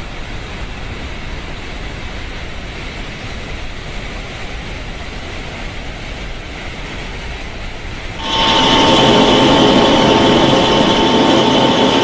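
Animated sound effect of water rushing steadily through a pipeline. About eight seconds in it turns much louder, with a steady machine whine at several pitches over the rush, as of the pump running.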